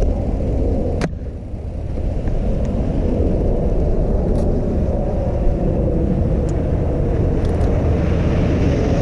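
Steady low rumble of wind and tyre noise picked up while riding a bicycle on snowy streets, with one sharp click about a second in.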